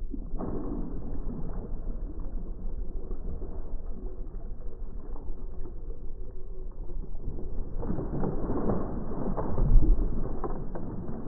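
Low, fluctuating rumble of wind buffeting the microphone, growing louder about eight seconds in.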